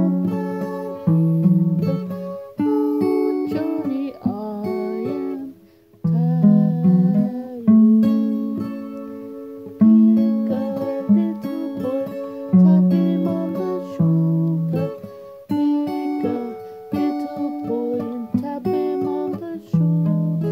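Acoustic guitar picked in chords, each one struck sharply and dying away, under a harmonica playing a melody of held notes with some bends.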